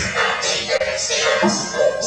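Recorded music playing loudly, a dense continuous mix with a pulsing beat.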